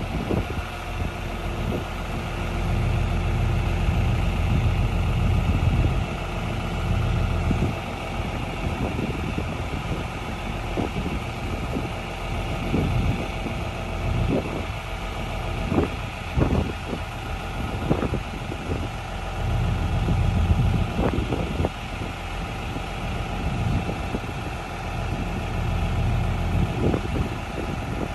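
John Deere 4430's six-cylinder turbo diesel engine idling steadily, growing louder for a few seconds twice, with a few short knocks in the middle.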